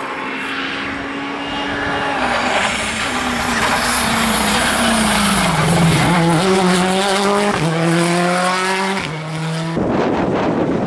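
Rally car engine at speed on a tarmac stage. The engine note falls as the car slows into a bend, then climbs again with a gear change as it accelerates away. Near the end the sound changes abruptly to another car, heard more as a rushing noise.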